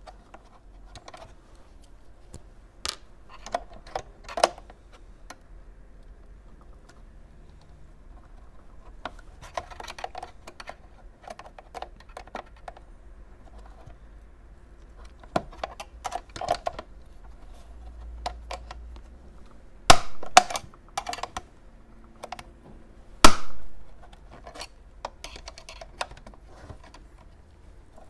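Irregular clicking, tapping and scraping of plastic and metal parts as a modem's internal frame is pried loose from its plastic case with a small tool. A few louder, sharp snaps come in the second half.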